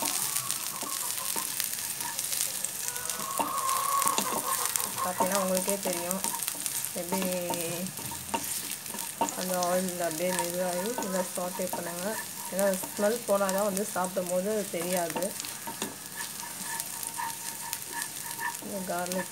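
Chopped garlic sizzling in hot oil in a nonstick pan while it is stirred with a wooden spatula, sautéing until done. A voice sounds in the background in several stretches of about a second each through the middle and again near the end.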